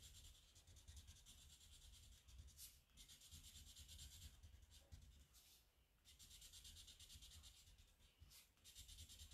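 Faint scratching of a black felt-tip marker on paper, colouring in the small squares of a checkered pattern. The strokes run in stretches with short breaks about three seconds in, around six seconds and just past eight seconds.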